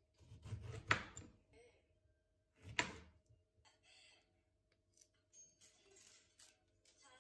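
A chef's knife cuts through an orange and knocks onto a wooden cutting board twice, about two seconds apart. Softer clicks and rustles follow as the orange pieces are handled and peeled.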